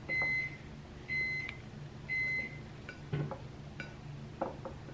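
Refrigerator door-open alarm beeping three times, about a second apart, each beep a short steady tone: the sign that the fridge door has been left open. After the beeps come a few light knocks.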